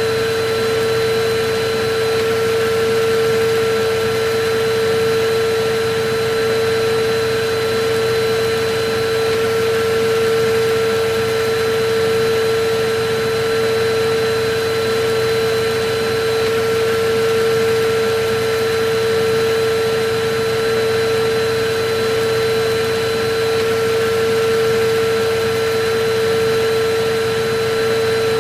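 Electric vacuum cleaner running continuously: a steady motor whine over an even rush of air, with no change in speed.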